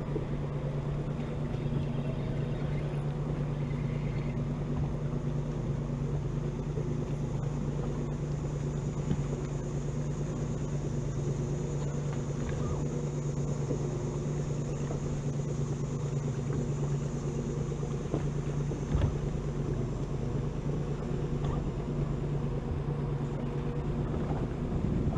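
Boat motor running steadily with a low, even hum. A single knock sounds about three-quarters of the way through.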